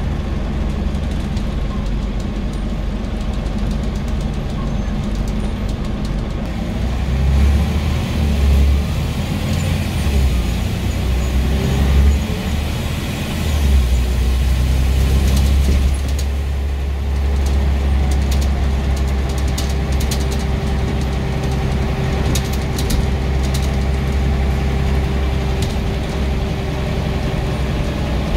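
Scania N94UB bus's diesel engine running under way. It pulls louder from about seven seconds in, eases briefly around thirteen seconds, then runs steadily with a constant whine and light rattles for the rest.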